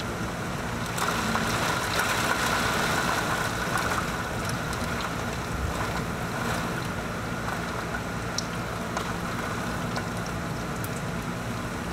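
Heavy rain pouring down steadily during a storm, with a low steady hum underneath.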